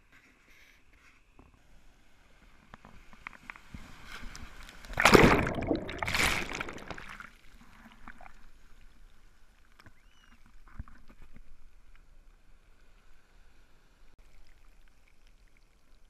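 Shallow surf washing over and around a camera sitting in the water's edge: the swash builds to a loud rush of broken wave in two surges about five and six seconds in, then drains back to a softer wash.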